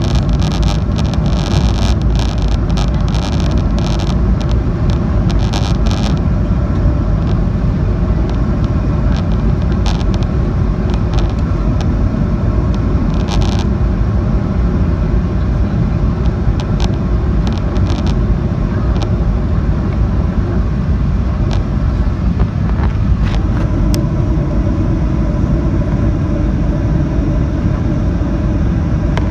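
Steady roar inside the cabin of a Boeing 737-800 on final approach: its CFM56-7B engines and the rush of air over the airframe, with a faint steady hum. Light crackling rattles run through the first six seconds or so, then thin out to occasional clicks.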